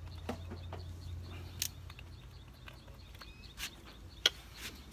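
Plastic bottles being handled on a table: a few scattered sharp clicks and taps, the loudest about four seconds in, over a low hum that fades after about two seconds.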